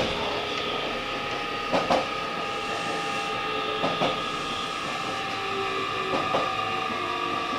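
A JR Kyushu 817 series electric train running at speed, heard from inside its rear cab. Pairs of clacks from the wheels crossing rail joints come about every two seconds over a steady whine and rumble.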